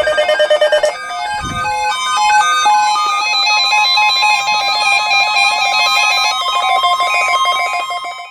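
Electronic music made of quick, short, high pitched notes in several voices, with a brief low swell about a second and a half in; it cuts off suddenly at the end.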